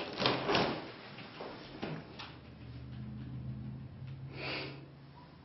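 Shower stall's door being slid along its track, with a few clicks, then a low steady hum.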